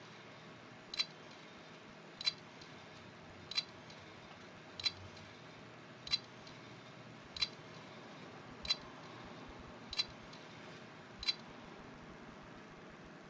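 Seagate ST9500325 2.5-inch laptop hard drive clicking about every 1.3 seconds, nine clicks over a faint steady whir. This is the abnormal noise of a faulty drive that is not recognised.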